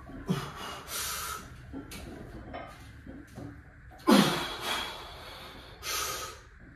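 A person breathing in short, sharp, noisy bursts, with one loud forceful exhale about four seconds in.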